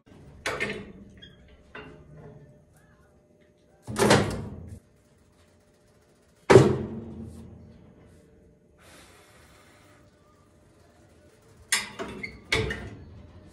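Split firewood logs knocking and thudding into the firebox of an Ashley wood furnace, a handful of separate thunks, the loudest about six and a half seconds in, ringing on briefly. Near the end, two metal clanks as the furnace's loading door is swung shut and latched.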